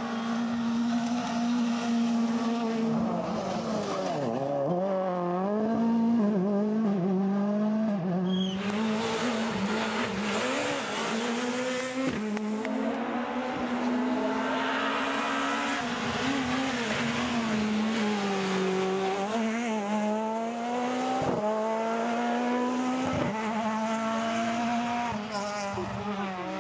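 Rally cars, among them a Škoda Fabia S2000, driving flat out at high revs; the engine pitch holds high, then drops and climbs again several times as they brake and shift gear, with quick dips near the end.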